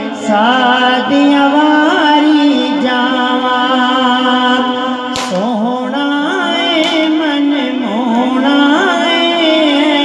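A male voice singing a long, wordless, wavering melismatic passage of a Punjabi naat over a steady drone note held underneath. There are two brief sharp clicks in the middle.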